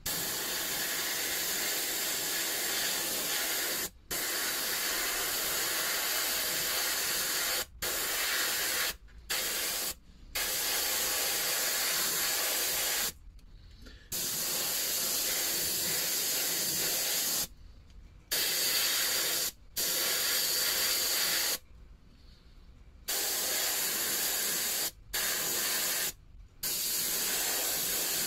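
Airbrush spraying aluminium primer with a steady hiss, cut off and started again about ten times as the trigger is released and pressed.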